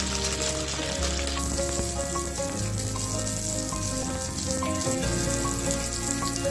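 Eggs set in hollowed tomatoes frying in hot oil in a pan: a steady crackling sizzle that drops back a little about a second and a half in. Background music with a melody and bass line plays alongside.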